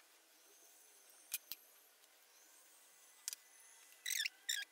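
Hands sprinkling grated mozzarella onto pide dough on a parchment-lined baking tray: a few faint clicks, then two short crinkly rustles near the end.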